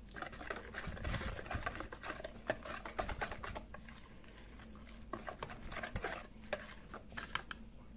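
Wire balloon whisk beating flour into a thin milk-and-yeast batter in a bowl: quick, irregular taps and scrapes of the wires against the bowl's sides, easing off briefly about halfway before picking up again.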